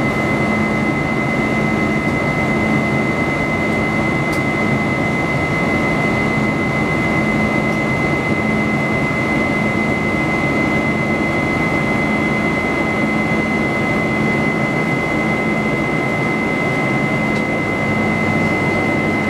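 Cabin noise of a Boeing 747-400's Pratt & Whitney PW4056 turbofans in the climb, heard from a window seat over the wing: a steady rush of engine and air noise with a thin, steady high whine and a low hum.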